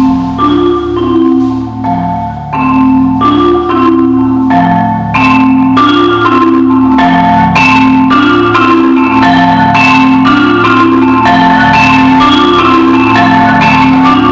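Marimba music: quick, repeating mallet notes in shifting patterns over low held notes, growing louder about five seconds in.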